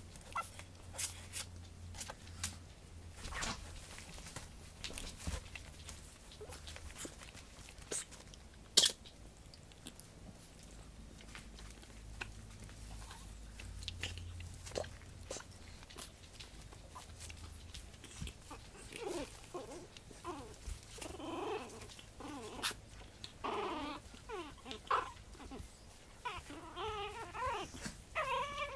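Month-old Japanese Chin puppy whimpering and squeaking in short, wavering high calls that start about two-thirds of the way in, after a stretch of scattered light clicks and taps.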